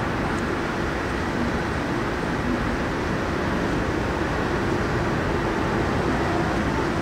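Steady city ambience: an even hum of road traffic.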